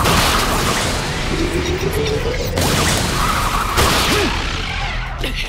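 Animated battle sound effects: heavy booms and crashing impacts, at the start, about two and a half seconds in and near four seconds, with a rising tone between them, over music.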